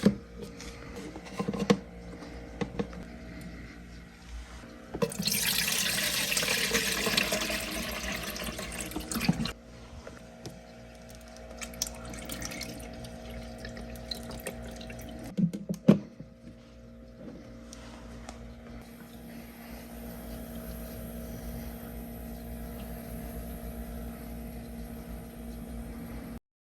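Water running for about four seconds, starting about five seconds in. A few sharp clicks and knocks come around it, over a steady low hum.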